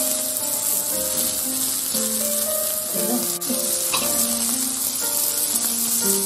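Beef strips and mushrooms sizzling on a hot domed metal grill plate, a steady frying hiss, under a background music melody.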